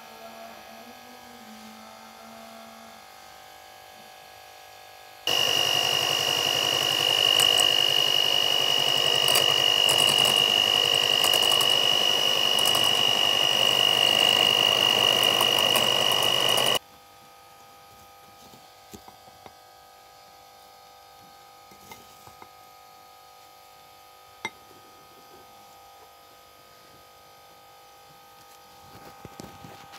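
Electric hand mixer running with a steady high whine, its wire beaters whipping a thick creamy mixture in a glass bowl. It starts about five seconds in and cuts off suddenly some eleven seconds later. The rest is a low hum with a few light clicks.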